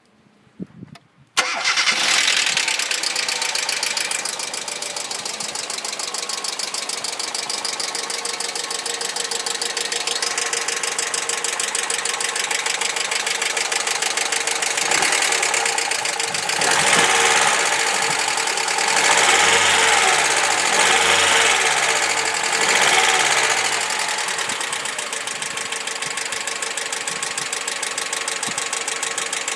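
Hyundai Accent petrol engine starting about a second and a half in and then idling with a rapid, steady ticking from the hydraulic valve lifters. The engine is revved up three times briefly in the middle.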